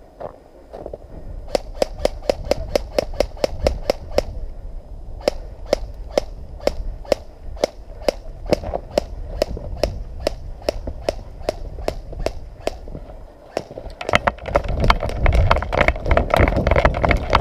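Airsoft gun firing a long string of rapid single shots, about four or five a sharp crack a second, in two runs with a short break between. From about fourteen seconds in, a loud low rumbling noise joins the shots.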